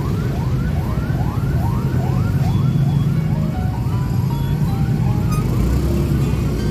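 Emergency-vehicle siren in a fast yelp, a rising wail repeating about twice a second, over the steady rumble of motorcycle and traffic engines.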